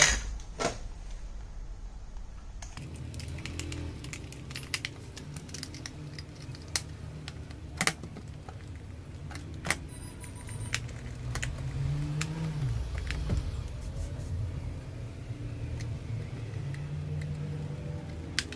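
Scattered plastic clicks and rattles from handling a toy RC stunt car's plastic body and battery compartment while a battery is fitted, over a low steady hum that starts about three seconds in.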